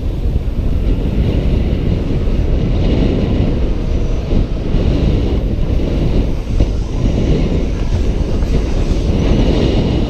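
Steady loud rumble of wind buffeting a helmet-mounted camera and BMX tyres rolling over the track at racing speed.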